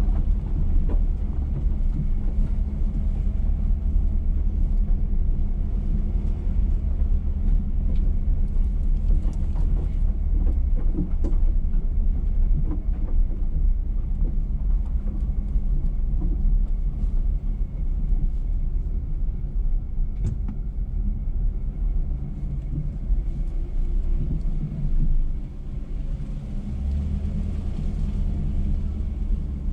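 2021 GMC Sierra X31 pickup truck driving through deep sand: a steady low engine and drivetrain rumble, with a few faint clicks.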